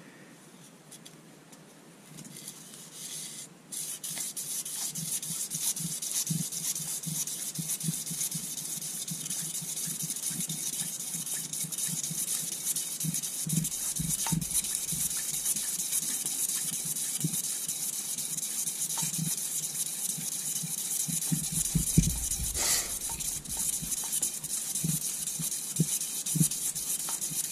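Lubricated 2000-grit abrasive strip pulled back and forth around a Rover 3.5 V8 crankshaft journal, a steady hissing rub that starts about four seconds in, polishing scarring out of the journal. One louder knock comes near the end.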